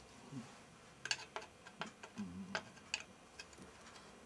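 Irregular light metallic clicks and ticks of a hand tool working a fitting on a BSA three-speed gearbox's outer cover, about eight in all, starting about a second in.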